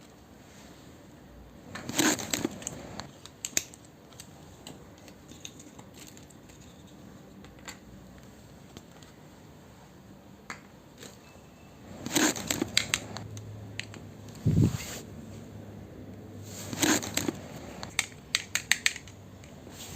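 Handling of toy packaging and small plastic miniature kitchen pieces: three bursts of crinkling and scraping, scattered sharp clicks with a quick run of them near the end, and a single low thump about fourteen and a half seconds in.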